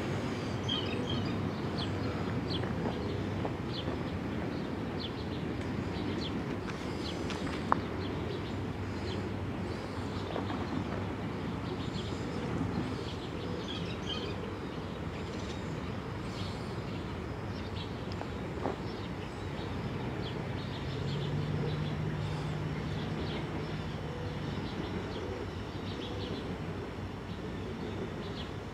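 Birds chirping over a steady low background rumble, with one sharp click about eight seconds in and a low steady hum lasting a few seconds in the last third.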